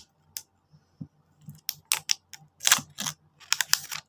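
Packaging being handled as a phone box is opened: a scattered run of short clicks and crinkles, sparse at first and busier and louder in the second half.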